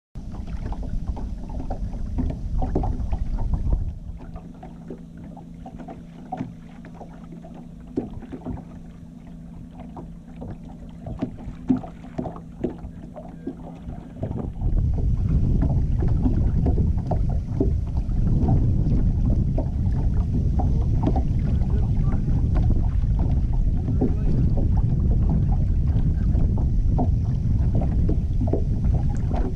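Fishing boat under way on a lake: wind buffeting the microphone and water slapping against the hull, with many small ticks and knocks. A steady low hum runs from about four seconds in to about halfway, while the wind is lighter, and then the wind rumble turns louder for the rest.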